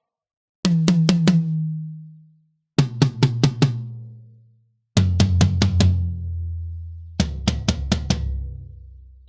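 Sampled toms from the Claustrophobic EZX library for EZdrummer 3, played in four quick runs of about five strokes each. Each run rings out, and each one is lower in pitch than the one before, stepping down from the high tom to the floor tom.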